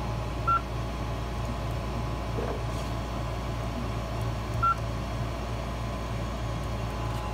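Creality CR-10S Pro touchscreen giving two short beeps about four seconds apart as it is tapped, over a steady mechanical hum.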